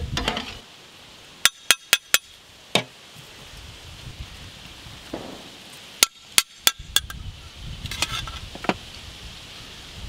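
Perforated steel skimmer clinking against metal cookware as pulao rice is scooped out of a large pot. There are sharp metallic taps in two quick runs of about four, one a little over a second in and one about six seconds in, with a few softer clinks after them and a soft scraping of rice between.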